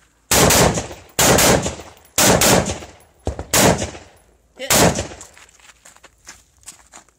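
Six rifle shots from an AR-style carbine, fired roughly one a second with a closer pair in the middle, each trailing off in a ringing echo.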